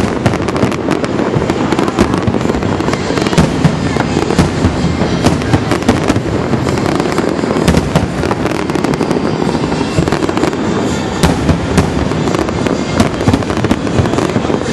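Fireworks going off in a dense, continuous barrage of many overlapping bangs and crackles with no gaps.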